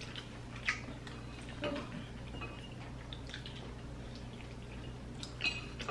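Faint, scattered clinks of cutlery and dishes at a meal table, a few light ticks over a steady low room hum.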